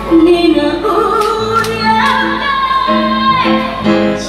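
A young girl singing into a microphone over backing music, amplified through the stage PA, holding one long note in the middle of the phrase.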